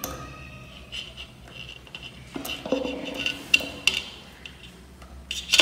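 A string of light metallic clicks and clinks as a steel safety wire is wound and tied around a ceiling fan's downrod and its bolt, the loudest near the end.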